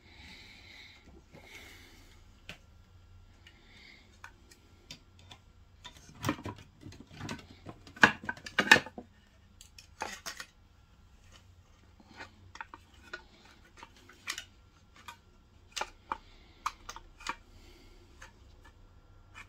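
Plastic housing and metal soleplate of a Tefal steam iron being handled and fitted back together: scattered clicks and knocks, with a burst of louder clattering about six to nine seconds in.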